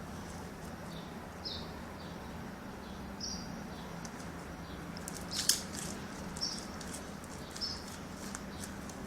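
A small bird chirping, short high chirps every second or two, with a sharp click about five and a half seconds in over a steady low hum.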